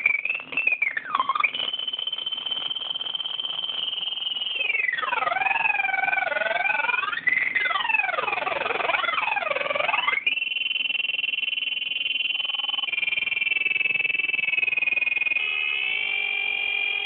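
Homemade breadboard noise machine putting out high electronic tones whose pitch shifts as a hand moves over the circuit, theremin-like. A steady high tone gives way to tones sweeping up and down, then about ten seconds in settles into a steady cluster of several tones that step slightly in pitch.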